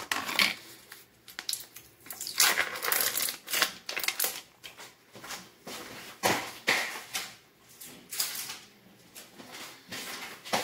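Irregular rustling, crinkling and clattering of food packaging and kitchen items being handled, in bursts of varying length.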